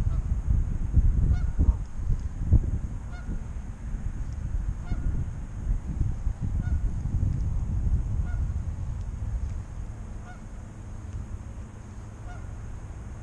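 A goose honking over and over, about once a second, under a loud, gusting low rumble that eases off near the end.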